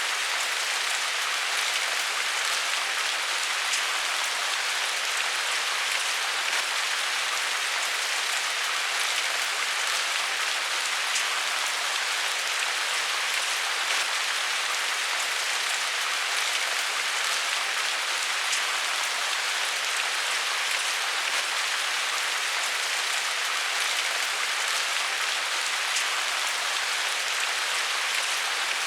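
Steady rain falling on a surface, an even hiss with scattered individual drops ticking.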